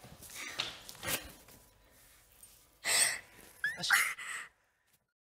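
A few short breathy vocal sounds and a brief rising vocal note, then the sound cuts off to dead silence about four and a half seconds in.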